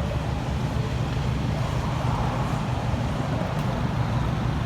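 Steady low rumble of road traffic and vehicle noise, unchanging throughout.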